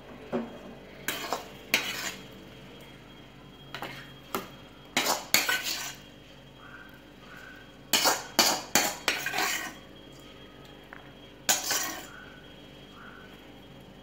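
Steel serving spoon scraping and knocking against a kadai as cooked drumstick masala fry is scooped out into a bowl. It comes in several short clusters of clinks and scrapes with pauses between them.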